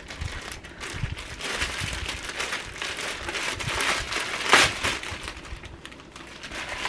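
Clear plastic bag crinkling as it is handled and pulled open off a plush backpack. The crackling comes in uneven bursts and is loudest about four and a half seconds in.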